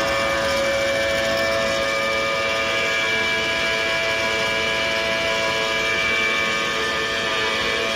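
Gearbox whining: a steady, high-pitched whine of several tones held at once over a rumble of running noise. It is an abnormal gearbox noise, the sign of a fault in the gearbox.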